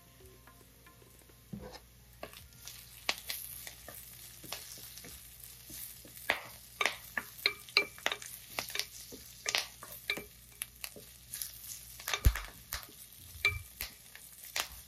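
Onions, green chillies and curry leaves sizzling in oil in a stainless steel frying pan while a wooden spatula stirs them, scraping and tapping against the pan. The strokes come quickly from about six seconds in, with one low knock about twelve seconds in.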